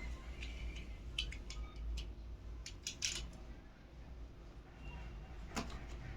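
Scattered light clicks and taps of earphone packaging being handled and opened, about a dozen over a few seconds, over a low steady hum.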